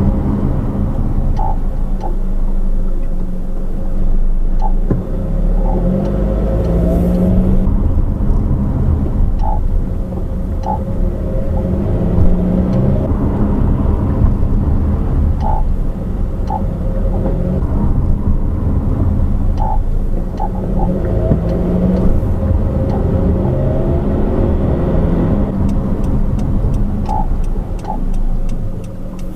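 Road and drivetrain noise inside a 2013 Honda CR-V AWD while driving, picked up near the rear differential, with the engine note rising and falling a few times.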